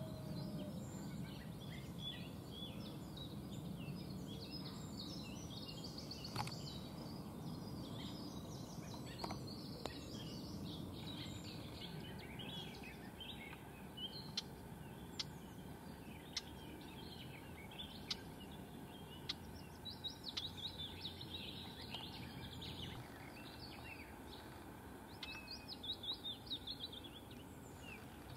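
Several small songbirds chirping and twittering, with sharp single call notes and quick twittering runs in the second half, over a steady low background rumble.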